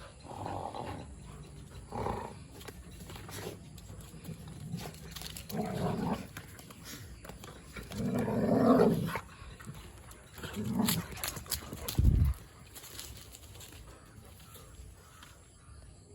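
Dogs vocalizing in a series of short bursts, the longest and loudest about eight to nine seconds in, with a low thump about twelve seconds in.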